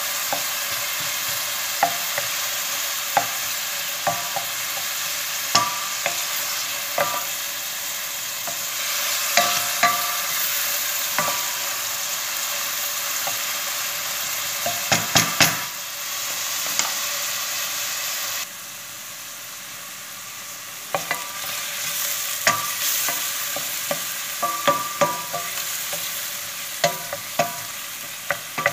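Diced onions sizzling in olive oil in a stainless steel pot while being stirred with a wooden spoon, the spoon scraping and knocking against the pot in frequent short taps. The sizzle drops noticeably quieter about two-thirds of the way through.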